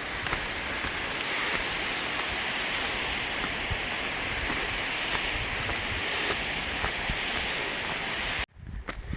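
Steady rushing of water, a mountain stream or falls running close by, with a few faint ticks over it. It cuts off suddenly near the end, giving way to a low rumble.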